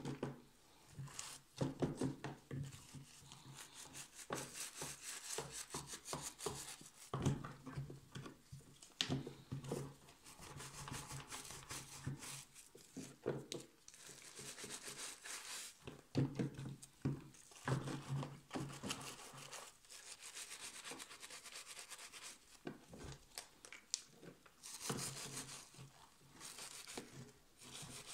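Stiff-bristled scrub brush scrubbing back and forth over a wooden model ship's hull in soapy water, making irregular scratchy rubbing strokes.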